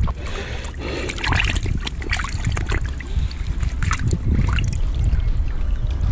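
Water splashing and trickling as a fish is swished and rinsed by hand in shallow river water, with irregular splashes over a steady low rumble.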